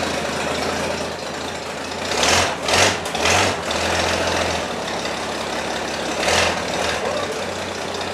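Engine of an old Chevrolet rat rod running steadily, with three short loud bursts close together about two to three and a half seconds in and one more about six seconds in.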